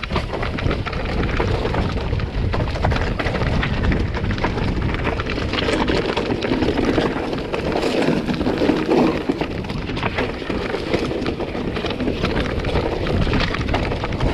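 Mountain bike riding down a rough trail: a continuous rumble of tyres over rock and gravel, with the bike rattling in many small clicks and wind buffeting the microphone.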